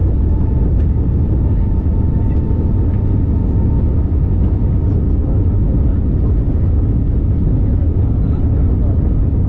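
Airbus A321neo airliner heard from inside the cabin, accelerating on the runway at the start of its takeoff roll: a heavy, steady rumble of engines and wheels with a thin engine whine that rises slightly at first and then holds steady.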